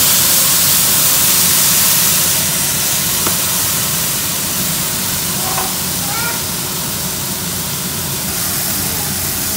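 A pot of water at a hard rolling boil, hissing steadily as gourd vine tips are blanched in it; the hiss is a little louder in the first couple of seconds.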